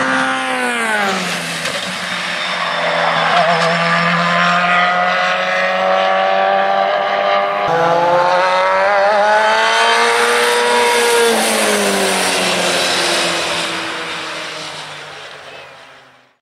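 British F3 racing cars' 2-litre four-cylinder engines running at speed on track. The engine note falls over the first two seconds and holds, then after a cut it rises under acceleration, levels off and falls again as the car goes by, before fading out near the end.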